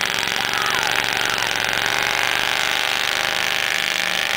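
Ford diesel mud truck's engine pulling hard under load as it tows a stuck pickup out of the mud, a loud, steady, rapid rattling exhaust.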